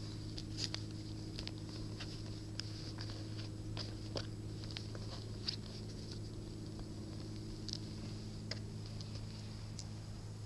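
A steady low hum with scattered light clicks and taps throughout.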